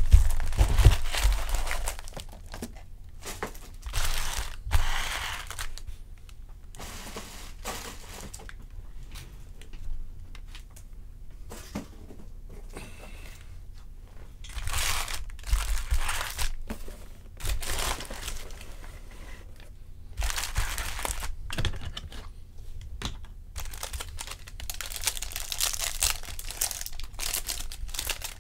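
Foil trading-card pack wrappers being torn open and crinkled by hand, in irregular bursts of rustling and tearing.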